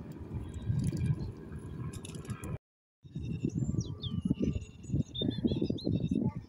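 Wind buffeting the microphone in uneven gusts, with a small bird chirping and twittering in the second half. The sound drops out completely for a moment about two and a half seconds in.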